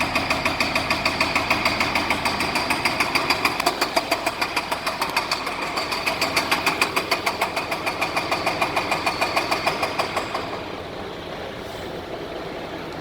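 MAN TGX truck's diesel engine running with a loud, even knock, about four knocks a second, a sign of suspected faulty injectors. About ten seconds in the knocking stops and a quieter steady sound remains.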